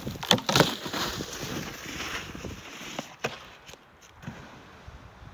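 A snowboard knocks against a corrugated culvert pipe: two sharp knocks about half a second in, then the board scraping over snow and fading away. A few fainter knocks follow near the end.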